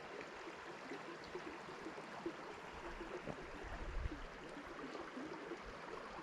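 Small mountain creek running and gurgling steadily, with a brief low rumble about four seconds in.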